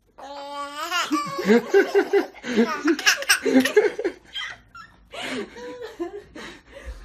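A small child laughing: a rising squeal, then a run of quick, loud laughs, trailing off into quieter giggles.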